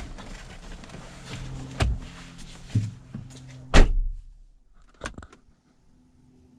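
Knocks and clicks of tools being handled, with one heavy thump a little under four seconds in, then a couple of sharp clicks about five seconds in.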